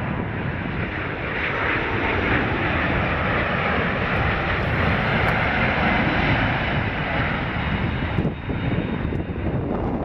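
Jet engine noise from a McDonnell Douglas MD-10-10F's three turbofans as the freighter passes low on approach. The noise swells as the jet comes closest and eases off about eight seconds in.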